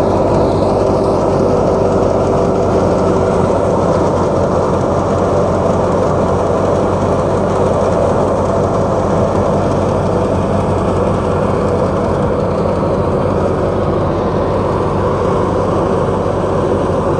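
Tractor-powered wheat thresher running steadily under load as cut wheat sheaves are fed into it: a loud, even mechanical drone of the threshing drum and blower over the tractor's engine hum.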